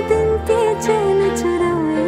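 Background music: a slow, gliding melody over held low notes.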